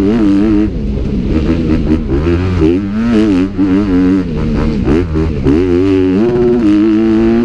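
Motocross dirt bike engines revving hard, the pitch climbing and dropping again and again as the throttle is worked and gears are shifted.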